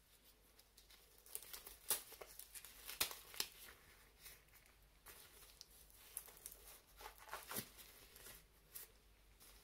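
Thin disposable gloves being peeled off the hands and turned inside out: faint crinkling and rustling with a string of short, sharp crackles, the sharpest about two and three seconds in.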